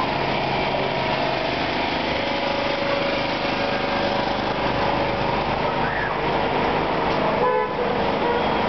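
Steady hum of several diesel generators running in front of shops during a grid power cut, mixed with street traffic. A short car horn toot sounds near the end.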